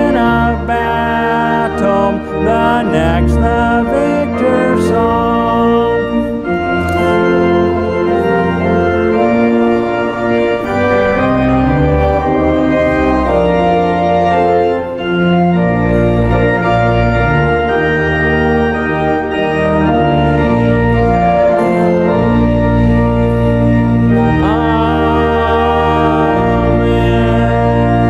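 Church organ playing sustained chords over a slow-moving bass line.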